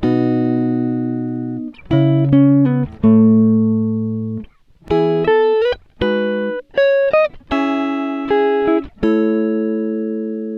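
Background music of plucked, guitar-like chords that ring out and fade, in short phrases with brief pauses between them.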